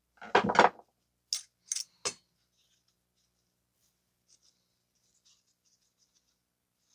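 Handling of a cut-open oil filter's parts: a knock, then three sharp clicks, then faint scratching and rustling.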